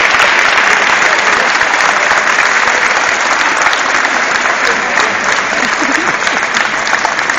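Audience applauding: dense, steady clapping that slowly tapers off.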